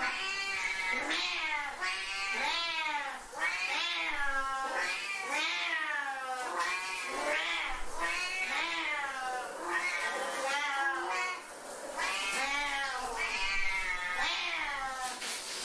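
Two Siamese cats yowling in a near-unbroken string of long meows, each rising and falling in pitch, about one call a second.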